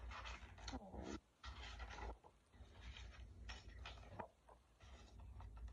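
Stiff pages of a picture book being turned and handled, with paper rustling and light scraping in several uneven bursts.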